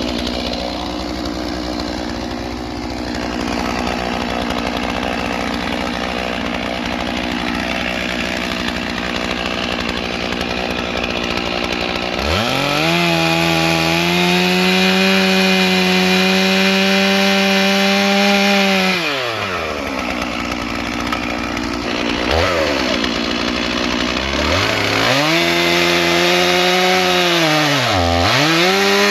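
Stihl MS 461 two-stroke chainsaw, idling at first, then opened up to full throttle for about six seconds a dozen seconds in, as for cutting logs. It drops back to a low speed and is revved up again near the end, with a brief dip in speed.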